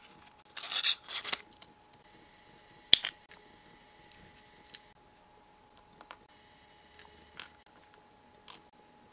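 Small miniature pieces being handled by hand: a tiny paper box crinkles and rustles for about a second near the start. A sharp click follows about three seconds in, then a few light clicks and taps as small plastic and metal parts are set in place.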